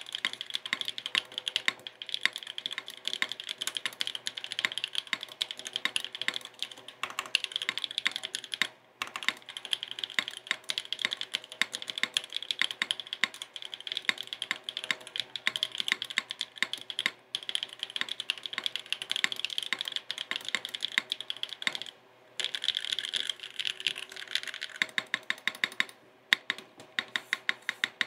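Continuous fast typing on a Neo70 custom mechanical keyboard with stock Gateron Pro Yellow 3.0 linear switches on an aluminum plate with no foam, under GMK keycaps: dense keystroke clacks with a few brief pauses and a rapid, even run of strokes near the end.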